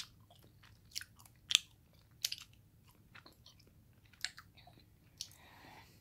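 Close-up chewing of soft Royce nama chocolate: about half a dozen sharp mouth clicks and smacks at uneven intervals.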